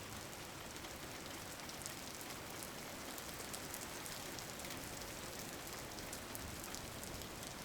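Steady rain falling, an even hiss with a scatter of small drop ticks.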